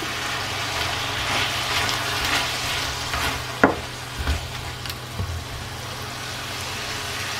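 Fish fillet pieces, peppers and onion in sweet and sour sauce sizzling in a non-stick wok while being stirred with a spatula, over a low steady hum. A sharp click sounds a little past halfway, followed by a few soft knocks.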